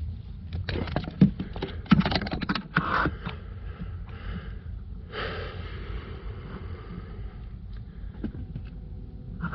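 Clicks and knocks of a hand tool and plastic parts being worked under a car's dashboard, at the blower motor housing. About five seconds in, a steady hiss starts and runs for about four seconds.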